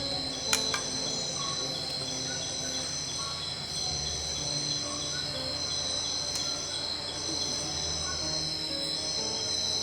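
Night chorus of crickets and other insects: steady high trilling, with one higher band pulsing on and off every second or two. A sharp click about half a second in, and soft low sustained tones underneath.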